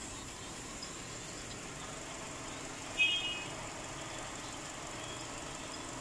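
Chevrolet Spark's four-cylinder Ecotec engine idling steadily and quietly, running smoothly on its newly replaced cylinder head gasket. A brief high chirp about three seconds in.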